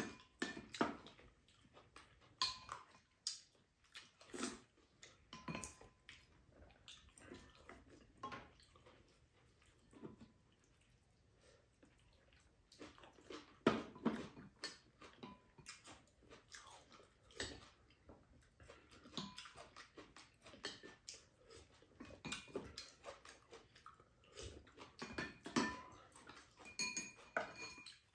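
Spoons and chopsticks clinking and scraping against ceramic bowls and a shared pan while two people eat, in irregular quiet taps, with a calmer stretch near the middle. Soft chewing and mouth sounds of eating come in between the clinks.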